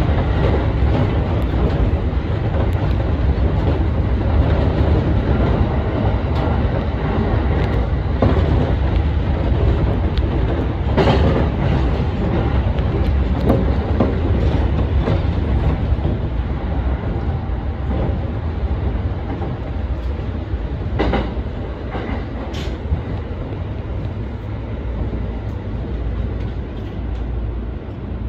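Electric commuter train of the Chūō-Sōbu Local Line running on the rails, heard from inside the front car. It makes a steady rumble with wheel clatter over rail joints, and a few sharp clacks about a third of the way in and again past two-thirds. The running noise eases off near the end as the train slows into a station platform.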